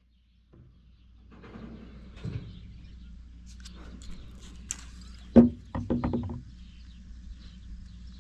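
Handling noises as a vial of cattle medicine is drawn into a plastic syringe and set down, with a few sharp knocks about five seconds in, over a steady low hum.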